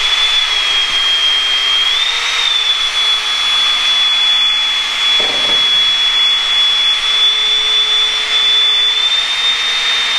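Cordless drill running steadily with a high motor whine, spinning a mixing paddle through two-part casting epoxy in a plastic mixing cup until the resin turns clear. The pitch lifts slightly about two seconds in and again near the end.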